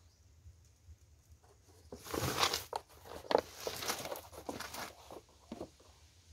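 A dog sniffing and snuffling right at the microphone: a run of loud, irregular, noisy snuffs and rustles lasting about three and a half seconds.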